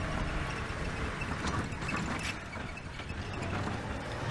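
Open safari vehicle driving off-road through rough bush: steady engine and driving noise, with a few knocks and rattles from the vehicle about halfway through.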